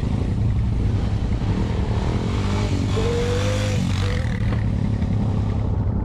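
ATV (quad bike) engine running with a steady low drone.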